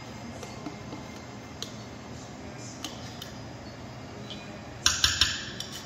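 Quiet room tone with a few faint ticks while thick condensed milk drips slowly from a tin can. About five seconds in, a quick run of sharp metal clinks and scrapes as the tin can and a stainless steel stock pot knock together.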